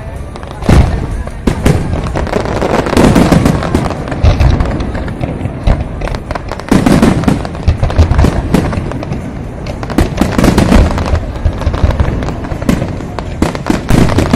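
Fireworks display: aerial shells bursting one after another, a dense run of sharp bangs and booms with heavier clusters every few seconds.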